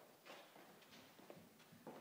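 Near silence: room tone with a few faint soft knocks and rustles.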